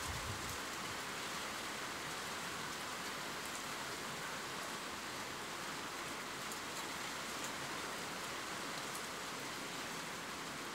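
Steady rain falling, an even hiss with a few faint scattered drop ticks.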